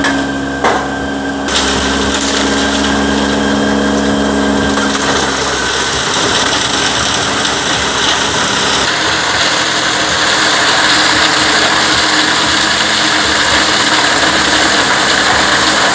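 Heavy wood-processing machine running under load: a steady engine with a loud grinding, crunching noise of tree trunks being broken up. The grinding noise swells sharply about a second and a half in, and its character shifts a couple of times after that.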